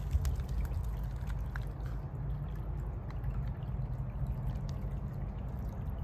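Shallow creek water trickling and splashing over rocks, with many small splashes and drips over a steady low rumble.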